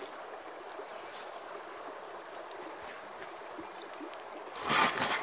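Shallow creek water flowing with a steady rushing noise. Near the end comes one brief, louder noisy burst.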